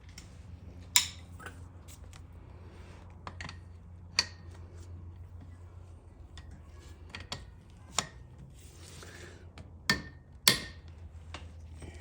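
Metal hand tools clinking and clanking as a socket and breaker bar are handled and fitted: a handful of sharp metallic clanks, the loudest about a second in and again near the end, over a steady low hum.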